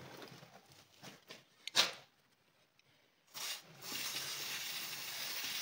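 Aerosol chain-lube spray can hissing through its straw onto a motorcycle drive chain: a short first burst, then a steady spray from about four seconds in. A single sharp click near two seconds in is the loudest moment.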